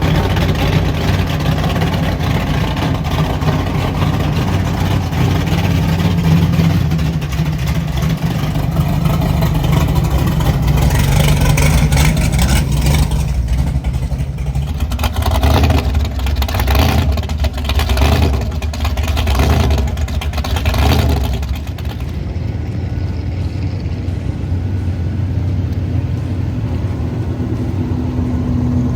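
Drag racing car engines running loudly. Midway there is a run of repeated revs, about one a second, before the sound settles to a lower steady level.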